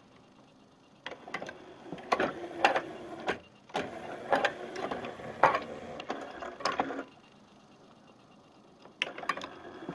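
Sony CDP-C325 disc carousel turning on its belt drive after a disc skip: a mechanical whirr with clicks and taps. It starts about a second in, pauses briefly, stops about seven seconds in and starts again near the end. The disc clamp arm is set too low and clips and taps on the carousel as it turns.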